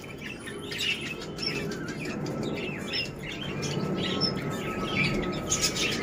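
Zebra finches calling: many short, high chirps, overlapping and irregular, over a low steady background noise.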